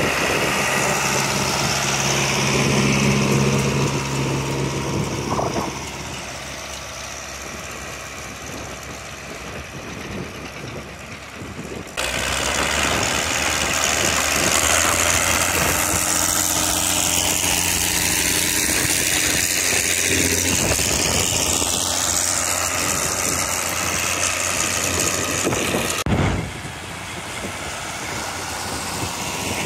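Antique farm tractor engines running as tractors go past at a plowing demonstration. First a John Deere 3020 diesel, its steady engine note fading about six seconds in. The sound then changes abruptly about twelve seconds in and again near the end, with other tractor engines running steadily.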